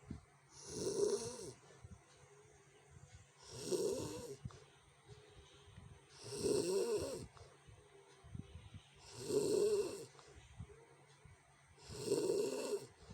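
A sleeping person snoring harshly: five snores in a steady rhythm, one about every three seconds, each lasting about a second.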